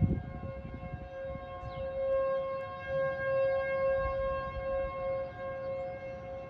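Outdoor tornado warning sirens sounding a steady tone at more than one pitch at once, the level swelling and fading. This is the steady alert signal for a tornado warning.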